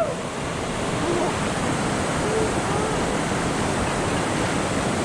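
Steady rush of flowing water in a mountain valley stream.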